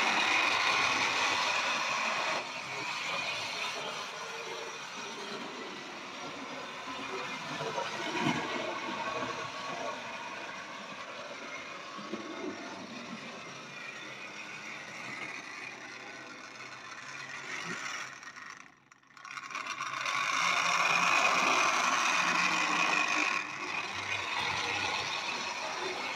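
Tri-ang Hornby OO-gauge Flying Scotsman model locomotive running around a layout: a steady electric-motor whirr with wheels rattling over the rail joints, getting louder and softer as it passes nearer and farther. It is running well. The sound briefly cuts out about two-thirds of the way through.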